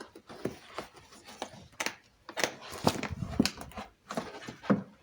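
Hands working on an Alfa Romeo 166 front door as it is reassembled: irregular taps and knocks with rustling between them.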